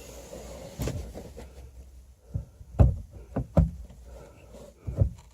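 Several dull knocks and bumps, about six spread over the few seconds with the loudest near the middle, as a 6x9 car speaker is shifted against a car's rear parcel shelf to line up its screw holes.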